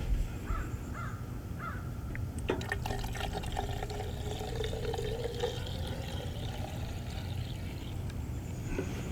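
Fuel being poured into a Stihl chainsaw's fuel tank: a steady trickling pour, starting about two and a half seconds in, whose pitch rises slightly as the tank fills.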